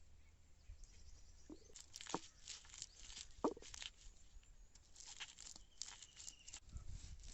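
Whole spices being worked on an ammi, a flat stone grinder: scattered faint clicks and knocks of stone on spices, then near the end a run of low rhythmic thuds as the grinding gets going.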